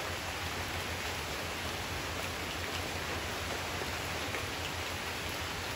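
Steady rain falling on wet tree foliage.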